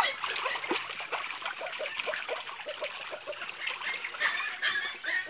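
Water splashing and trickling in a shallow paddling pool, stirred up by children's kicking legs and feet, in a run of small, irregular splashes.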